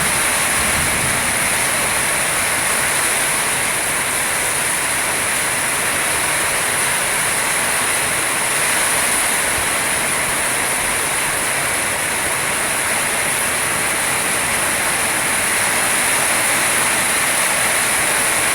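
Heavy tropical rainstorm: rain pouring down in strong wind, a loud, steady, dense hiss.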